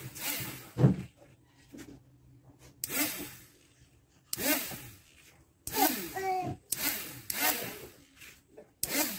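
Irregular rubbing or scraping strokes by hand on a workpiece, each lasting under a second and coming a second or so apart, some with a squeaky edge.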